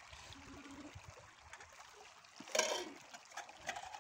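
Shallow stream trickling over stones while metal cookware is rinsed in it, with one brief louder clatter of a pot about two and a half seconds in.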